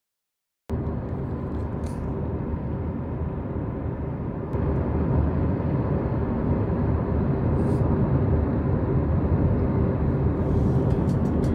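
Steady road and engine noise of a moving car heard from inside the cabin, starting abruptly after a brief silence and growing a little louder about halfway through.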